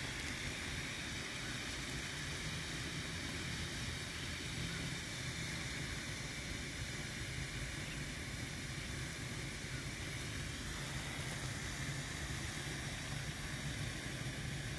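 Steady outdoor background noise: an even hiss over a low hum, unchanging throughout, with no distinct calls or knocks.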